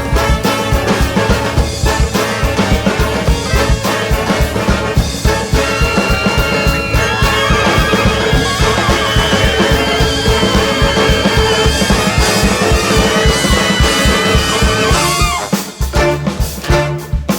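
Upbeat background music with a steady drum beat and held instrumental notes, dipping briefly near the end.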